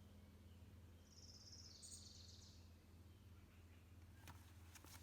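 Near silence over a low steady hum, with the faint high trill of a small bird about a second in and a few faint clicks near the end.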